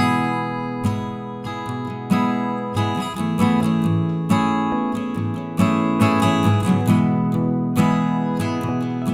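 Background music: an acoustic guitar playing picked and strummed notes at a gentle, steady pace.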